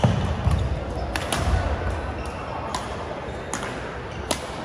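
Badminton rackets striking a shuttlecock: sharp cracks about a second apart during a doubles rally, some from neighbouring courts. Dull thuds of feet landing on the wooden court floor in the first two seconds.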